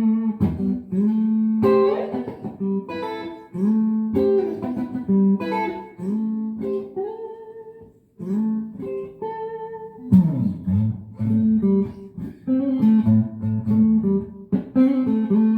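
G&L CLF Doheny V12 electric guitar played through an amp: picked single notes and short phrases, each ringing and fading, moving to lower notes after about ten seconds.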